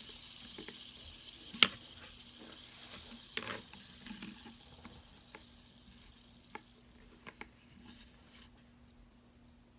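Two fidget spinners whirring on their bearings, a faint high-pitched whir that fades away as they slow down. Scattered light clicks, with one sharp click about a second and a half in.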